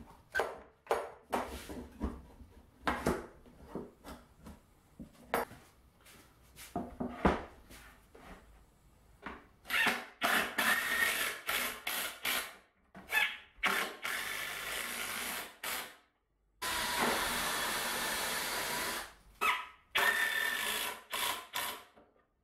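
Clamps and plywood panels handled with a string of knocks and clicks. Then a cordless drill runs into plywood in several short bursts and one longer steady run of about two and a half seconds, with a final burst near the end.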